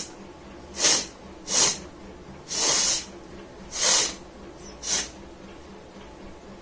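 A woman blowing her nose hard in a series of short, forceful blasts about a second apart, one of them longer, with no voice in them.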